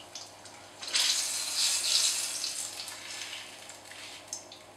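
Batter-coated apricots sizzling in hot oil in a small frying pan, the sizzle swelling about a second in and easing off toward the end. A few light clicks of forks against the pan.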